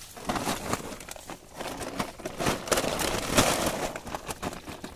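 Irregular splashing and rustling of live fish thrashing in a shallow pond drag net, with the crinkle of the nylon net and a woven plastic sack as the fish are scooped in; loudest in the middle.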